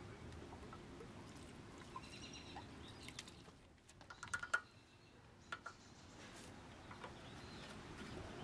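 Quiet outdoor background with a few faint bird chirps, loudest about four seconds in, and a few light clicks of plastic parts being handled.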